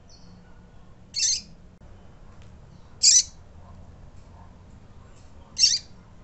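Female double-collared seedeater (coleiro) calling: three short, loud, high-pitched peeps about two seconds apart, with a faint thin note just before the first.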